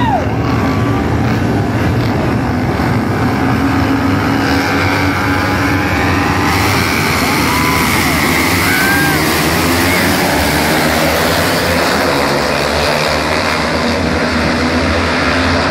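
A pack of 300–400 cc racing motorcycles running on the circuit, several engines revving over one another, with pitches rising and falling as they pass. The sound gets louder and brighter about six seconds in.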